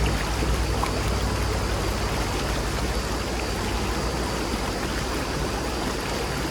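A shallow river's murmur (seseragi): water flowing steadily.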